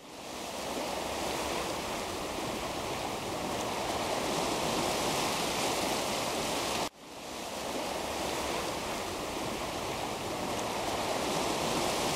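Steady rushing of ocean waves on a shore. It fades in at the start, cuts out suddenly about seven seconds in and fades straight back in.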